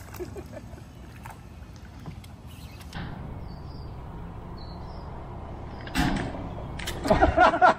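A fish jumps clear of the water with a sudden loud splash about six seconds in, over a steady low hum on the boat, and is followed near the end by a second burst and a shout.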